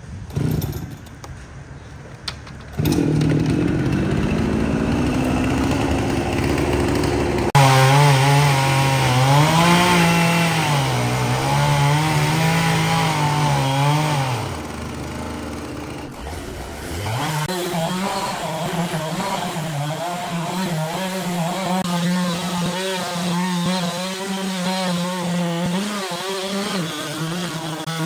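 Gasoline chainsaw running at high revs and cutting into a large log, its engine pitch dipping and recovering under load. It is quieter for the first few seconds and louder from about three seconds in.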